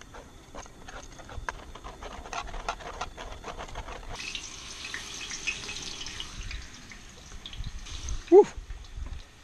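A wire whisk clicking and tapping against a plastic tub as dry batter flour is mixed, then, from about four seconds in, the steady high sizzle of fries deep-frying in hot oil in a cast-iron pan. Near the end a brief loud pitched sound stands out over the sizzle.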